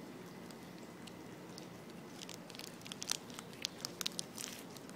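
Small clicks and crinkles of fingers picking at a knotted cord with a small metal piece. A run of short, sharp clicks begins about two seconds in.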